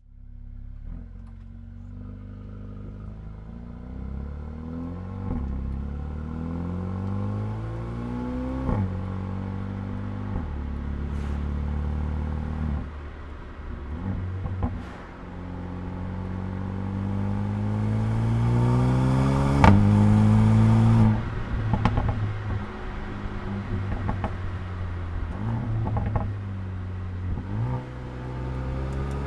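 Mercedes-AMG A35's turbocharged four-cylinder engine and exhaust under hard acceleration, revs climbing again and again with quick drops between them. The loudest climb is about two-thirds through and cuts off suddenly, followed by a run of exhaust pops and crackles.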